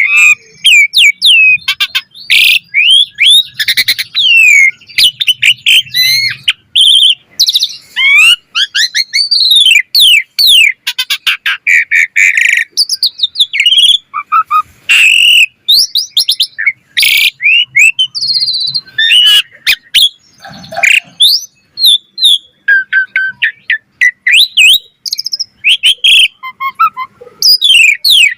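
Asian pied starling (jalak suren) singing vigorously and without pause: a dense, varied stream of whistles, rising and falling chirps and short harsh clicking notes.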